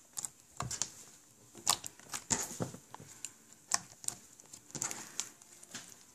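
Fluffy white slime being poked and squeezed by fingers, giving irregular soft clicks and pops, several close together at times, with a few sharper ones.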